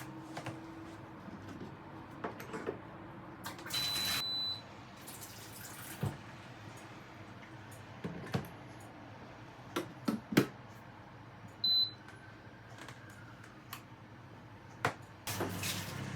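Household handling sounds: scattered clicks and knocks, an appliance giving two short high beeps several seconds apart, and a few brief bursts of hissing, water-like noise.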